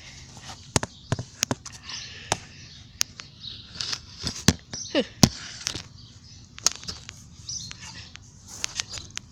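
Pickaxe chopping into packed dirt: a dozen or so sharp, irregularly spaced strikes with gritty scraping between them.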